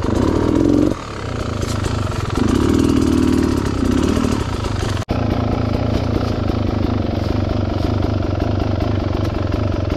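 Dirt bike engine running at low speed over technical ground, with two bursts of throttle in the first half. About halfway through the sound drops out for an instant, and then the engine runs steadily at a low, even pace.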